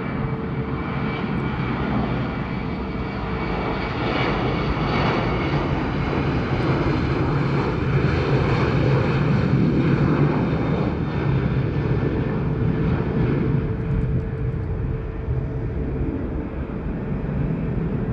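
Boeing 737-900's twin CFM56-7B turbofan engines at takeoff power as the jet departs, a steady loud jet noise that swells to its loudest about eight to ten seconds in and then slowly eases.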